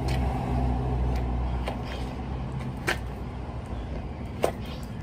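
Steady low rumble of an idling vehicle engine. Over it come four sharp taps of hands and sneakers striking asphalt during burpees, the loudest about four and a half seconds in.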